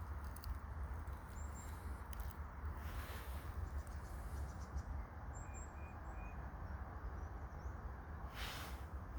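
Outdoor ambience: a steady low rumble, like wind on the microphone, with a few faint short bird chirps now and then and two brief rustling swells, one near three seconds in and one near the end.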